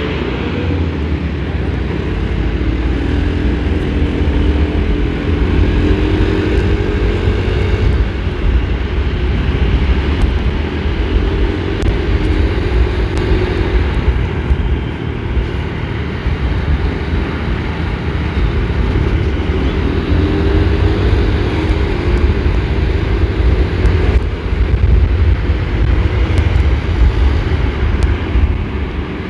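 Motor vehicle engines running on the road, heard from a moving vehicle, under a heavy, steady low rumble. An engine's pitch rises and falls in several stretches, as it revs up and eases off.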